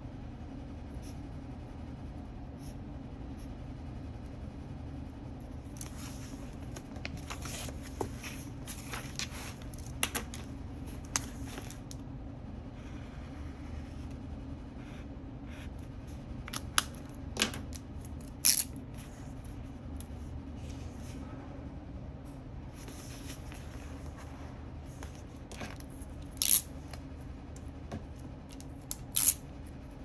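Scratchy pen-on-paper strokes and paper rustles from annotating a paperback book, coming in short bursts, with a few sharp loud clicks (three stand out, the last two near the end), over a steady low hum.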